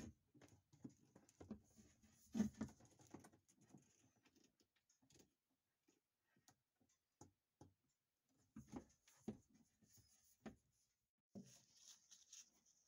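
Near silence: room tone with faint scattered clicks and rustles, the loudest about two and a half seconds in.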